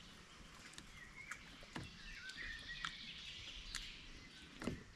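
Faint bird chirping and twittering outdoors, over a few scattered soft clicks and knocks.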